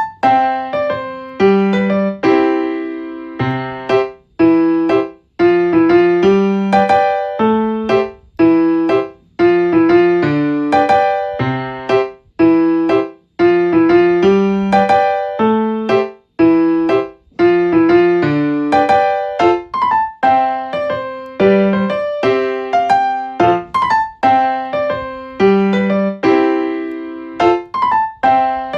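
Background music: a light piano or electric-piano tune, with struck notes in a steady rhythm.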